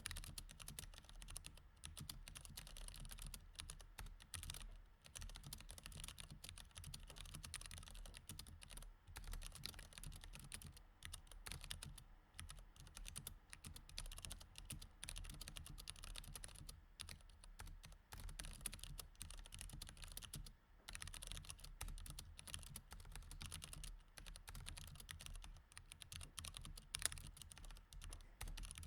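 Quiet, continuous typing on a mechanical keyboard with Cherry MX Red linear switches: a fast, uneven stream of key clicks with a couple of brief pauses and one louder keystroke near the end.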